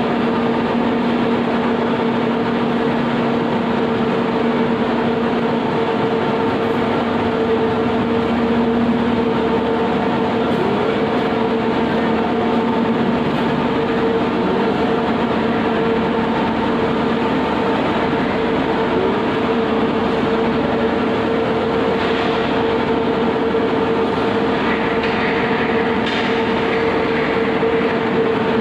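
Impact pulverizer grinding machine running: a loud, steady mechanical rush with an even hum under it.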